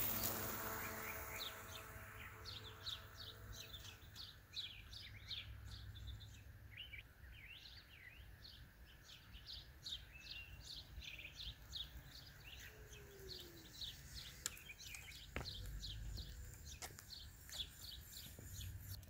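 Songbirds chirping: many short, quick calls repeating throughout, over a faint low rumble.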